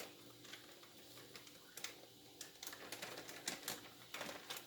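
A package being worked open by hand: scattered light clicks and crinkles, sparse at first and busier after about two and a half seconds.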